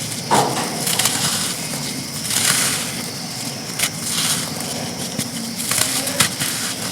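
Chunks of pure sand being crushed and crumbled: a string of crisp crunches and crackles over a steady grainy hiss, with a longer crumbling rush in the middle.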